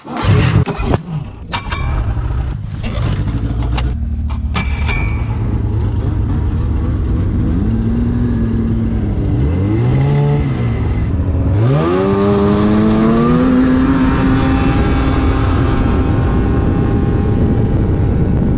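Snowmobile engine running, uneven with several sharp knocks in the first few seconds, then revving: the pitch falls and rises about halfway through and climbs again before holding steady.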